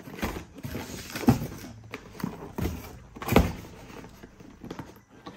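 Irregular knocks and clunks of an electric hand mixer and its packaging being handled and taken out of the box, two louder thumps among them.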